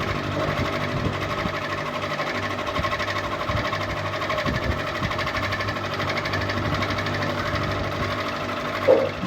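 Ceiling fan running: a steady electric-motor hum with a fast, even pulsing whir above it. A short louder sound comes just before the end.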